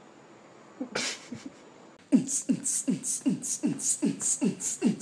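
A fast beatboxed or drum-machine beat: low kick-like thumps falling in pitch, each with a sharp hiss on top, about four a second, starting about two seconds in after a few short hits about a second in.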